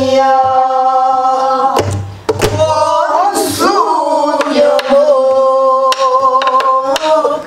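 Pansori singing: long held notes with a wavering bend near the middle, accompanied by several sharp stick strokes on a buk barrel drum.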